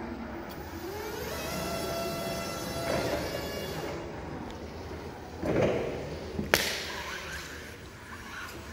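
STILL RX60 electric forklift driving, its drive motor whining and rising in pitch as the truck speeds up. A short rushing noise follows a little past the middle, then a single sharp knock, the loudest sound here.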